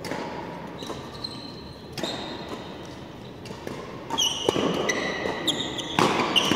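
Badminton rackets hitting a shuttlecock with short sharp pops, and court shoes squeaking on the floor. The hits and squeaks come thick from about four seconds in, as a rally gets going.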